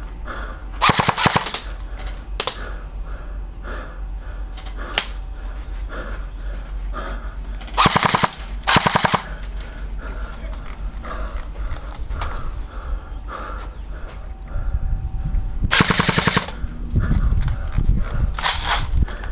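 Airsoft guns firing short rapid full-auto bursts of BBs, five loud bursts in all: one about a second in, two close together around eight to nine seconds, and two more near the end. Fainter scattered shots pop between the bursts.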